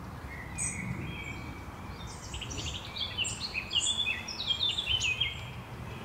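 A songbird singing in woodland: a short call about a second in, then a fast, varied phrase of high notes for about three seconds, over a low steady background rumble.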